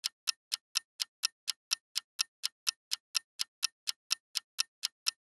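Clock ticking, about four even ticks a second, with dead silence between them: a ticking-clock sound effect.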